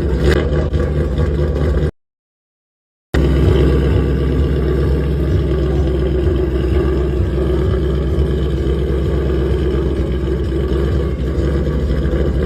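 Ford Mustang GT's V8 engine running steadily, with a dead-silent gap of about a second roughly two seconds in.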